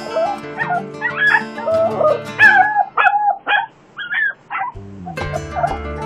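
West Highland White Terrier crying in its crate, a string of short whines and yips bending up and down in pitch, with a brief pause about four seconds in: the distress of a dog left alone. Music plays steadily underneath.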